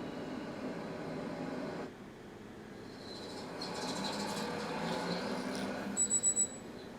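Steady background noise that cuts off about two seconds in and builds again, then near the end an electronic alarm clock starts beeping: high, rapid beeps in a group of four.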